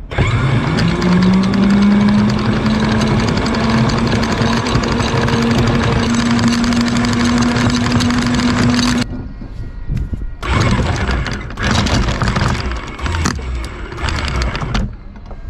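Electric anchor windlass motor running with its whine rising in pitch as it spins up, the 5/16-inch chain rattling over the gypsy. It stops about nine seconds in, then is run again in several short bursts.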